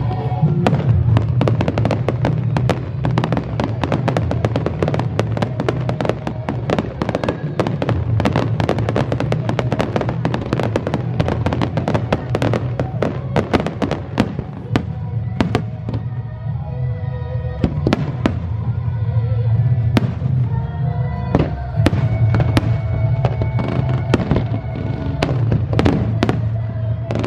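Aerial fireworks display: rapid bangs and crackling bursts, many a second, with music playing along with them.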